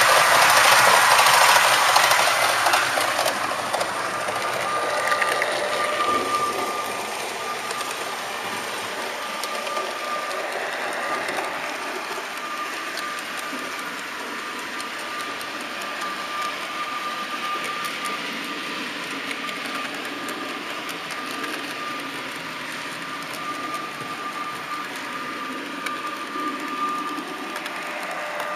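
HO-scale model train running on its track, heard from a camera riding on it: the locomotive's small electric motor whirring with a steady high whine, with the rattle of wheels on rail. Louder and rougher for the first few seconds, then settling to a steadier, quieter whir.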